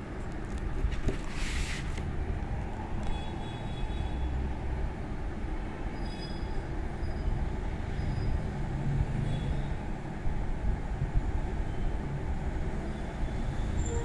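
A steady low rumble of background noise, with a short hiss about a second and a half in.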